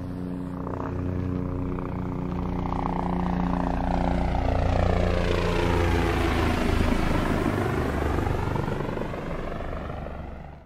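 Helicopter passing overhead: a steady drone swells to its loudest around the middle, with a sweeping whoosh as it goes over, then cuts off suddenly at the end.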